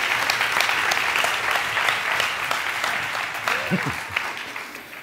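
Audience applauding in a large lecture hall, dying away over the last two seconds, with a brief voice calling out near the middle.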